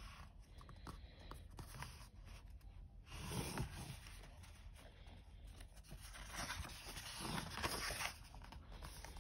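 Paper pages of a softcover colouring book being turned and smoothed flat by hand: soft rustling swishes about three seconds in and again near the end, with small paper scrapes and clicks between.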